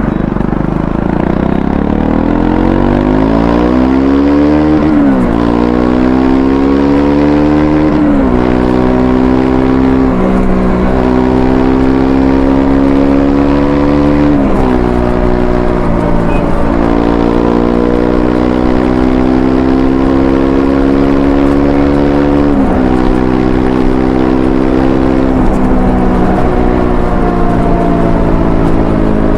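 Triumph Scrambler 400X's single-cylinder engine accelerating through the gears under riding, its pitch rising and then dropping sharply at each of several upshifts, then running at a fairly steady speed near the end.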